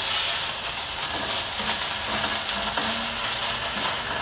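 Chicken pieces sizzling steadily in very hot oil with ginger, garlic and spices in a frying pan, stirred with a spoon that scrapes the pan now and then.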